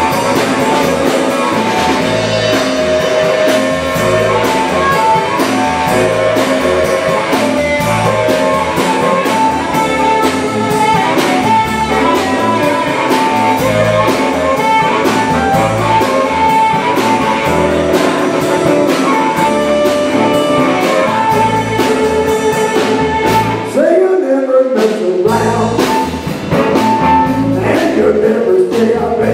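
Live electric blues band playing: electric guitar, bass and drum kit keeping a steady beat, with a harmonica played into a vocal mic through the PA. About five seconds before the end the band stops for about a second, leaving a lone sliding note, then comes back in.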